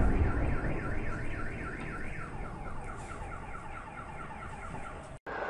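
Car alarm wailing with a fast, evenly repeating rising-and-falling warble, over the low rumble of an explosion that fades away in the first second. The sound cuts off abruptly near the end.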